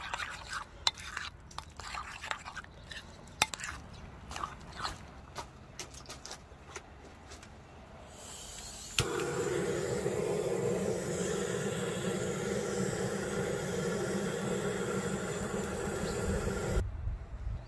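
A metal spoon scrapes and clicks against a ceramic bowl while stirring thick chili-paste sauce. About nine seconds in, a handheld butane gas torch starts abruptly and burns with a steady rushing hiss as it is held to the firewood, cutting off shortly before the end.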